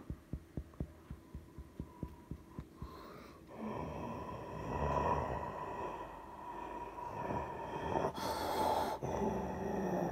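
Soft rhythmic thumps, about four a second, then the Boeing 787's jet engines at takeoff power swelling in from about three and a half seconds in: a steady rushing roar with a high fan whine.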